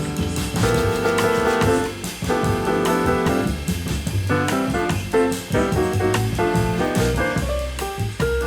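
Background music: an upbeat jazz-style track with horns, piano and drum kit.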